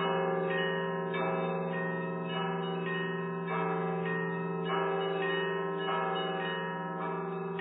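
Church bells change ringing: a peal of tower bells struck in steady succession, each new strike sounding over the hum of the ones before.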